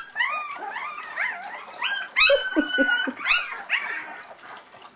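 A litter of three-week-old puppies whining and squealing, many high cries overlapping. They are fussing to nurse from their mother. The cries are loudest about halfway through and die down near the end.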